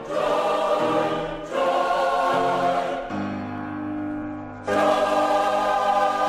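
Choir singing a Christian worship song in held chords; it drops to a softer sustained chord about three seconds in, then the full choir comes back in strongly about a second and a half later.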